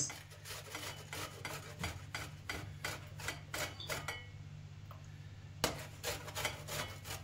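Soft spinach sponge cake being grated on a stainless steel box grater, a rasping stroke about three times a second. The strokes pause for about a second and a half about four seconds in, then start again.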